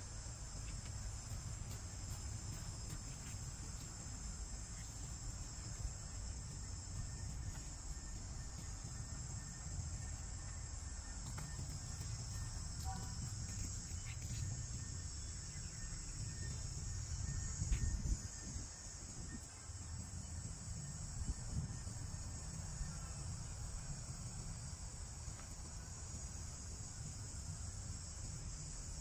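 Steady high-pitched insect chorus, a continuous chirring drone, with a low rumble underneath.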